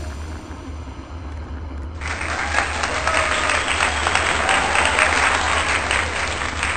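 Applause from a crowd, a dense clatter of clapping that starts suddenly about two seconds in, over a steady low rumble.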